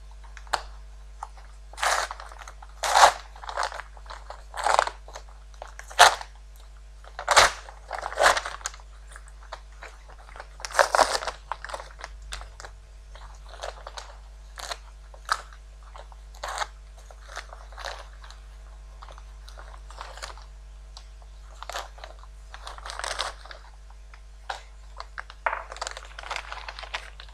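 Plastic packaging being handled and opened: irregular crinkling and crunching in short bursts, over a steady low hum.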